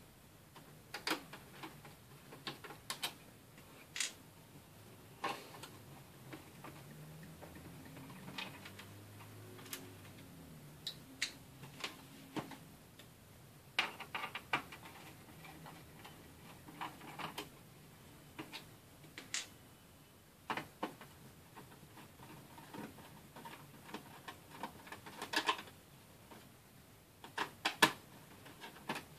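Irregular small clicks and taps of a screwdriver and small screws being worked out of a laptop's plastic-and-metal chassis, with the parts handled in between.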